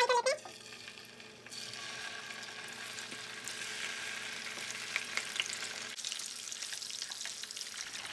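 Raw chicken drumsticks sizzling in hot oil in a nonstick frying pan, the sizzle growing louder about a second and a half in, with a few light clicks from metal tongs. A short, loud pitched sound comes at the very start.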